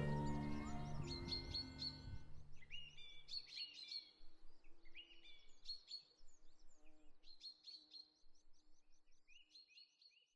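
The last chord of a string ensemble rings out and dies away over the first few seconds, leaving birds chirping and singing in quick repeated phrases that grow fainter toward the end.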